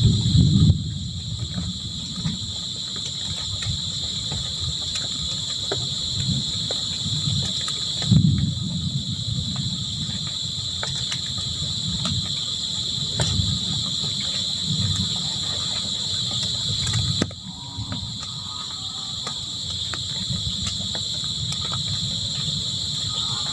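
Crickets trilling steadily over a low rumbling that swells and fades several times. About seventeen seconds in the rumbling drops away suddenly, leaving the crickets with a few faint pitched calls.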